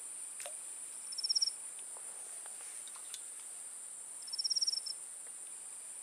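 Insects shrilling in the vegetation: a steady high-pitched drone, with two short rapid pulsed trills, about a second in and about four seconds in.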